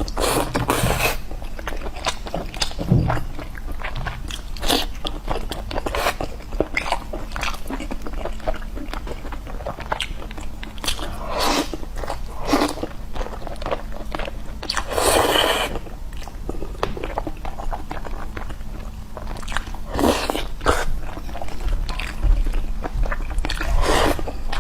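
Close-miked eating: a person biting and chewing crunchy food, many short crackling crunches with a few longer, louder ones.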